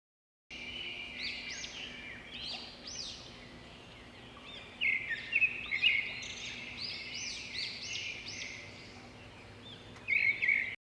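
Several small birds chirping and calling together in many short, quick, arching notes. The calls get louder around five to six seconds in and again near the end. The sound starts and cuts off abruptly.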